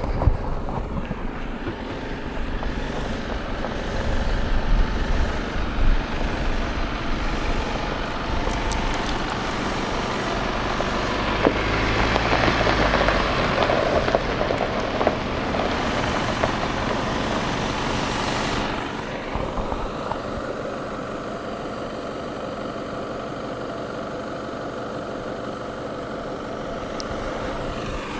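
Diesel camper vehicles driving slowly over loose gravel, engine running with tyre noise on the stones. It grows louder about halfway through as a van-based camper passes close by, then settles into a quieter, steady engine sound in the second half.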